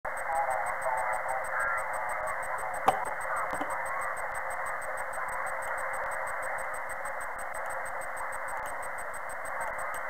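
Amateur radio receiver audio in upper-sideband mode on the 20-metre band: steady hiss through a narrow voice filter, with faint, garbled single-sideband voices, clearest in the first two seconds. A single sharp click just before three seconds in.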